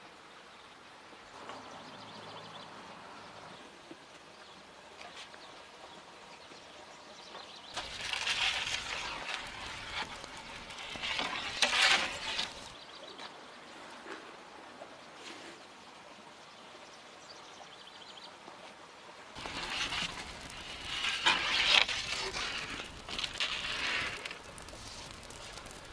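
Faint outdoor background at first. Then, in two stretches starting about eight and about nineteen seconds in, close crackling of a wood fire in a brick oven, with sharp clicks and the scrape of a wooden peel on the oven floor as pide are slid in.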